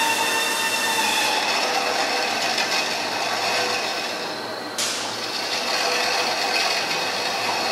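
Large spoked wheel spinning on the support rollers of a Schenck balancing machine: a steady mechanical whir with several whining tones. The sound breaks off and starts afresh about five seconds in.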